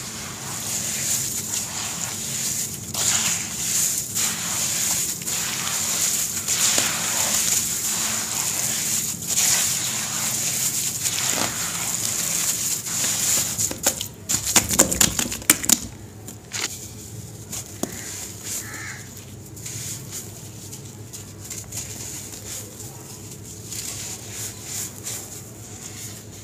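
Hands squeezing and kneading a damp sand-and-cement mix in a basin, a steady crunchy, squelching rub. About halfway through comes a flurry of sharp crackles, the loudest part, after which the rubbing is softer.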